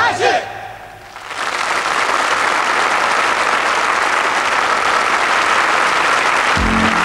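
Theatre audience applauding steadily after a song-and-dance number. The music cuts off at the very start, the clapping swells in about a second later, and a low bass beat starts under it near the end.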